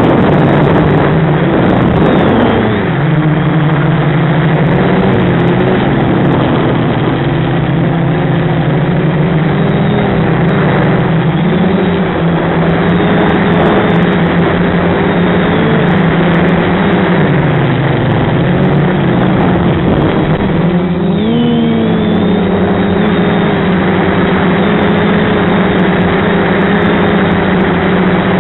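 FPV quadcopter's brushless motors and propellers running loud and steady. The motor pitch drops and climbs again several times as the throttle changes, under a constant noisy rush.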